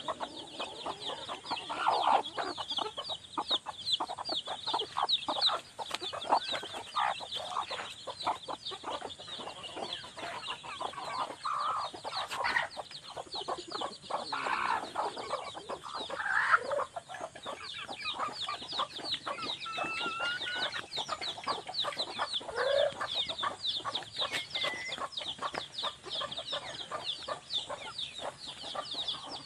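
Chickens clucking now and then, over a constant fast, high chirring in the background.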